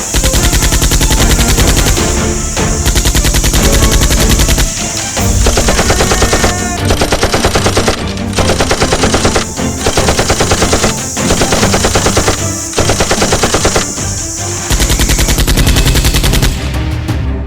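Bursts of rapid automatic gunfire sound effects, each burst lasting a second or two with short breaks between, over background music.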